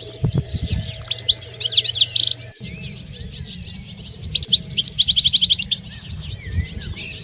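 European goldfinch song: two bouts of quick, high twittering and rapid trills, the first about one to two and a half seconds in, the second about four and a half to five and a half seconds in.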